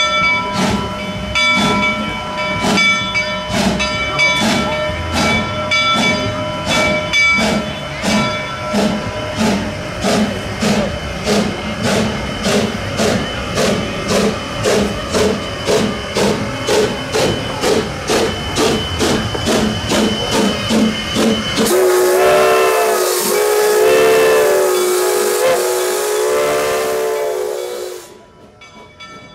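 Narrow-gauge steam locomotive: a bell rings in a steady beat, a little faster than once a second, for about twenty seconds. Then the steam whistle blows one long, hissing blast of about six seconds, which cuts off abruptly near the end.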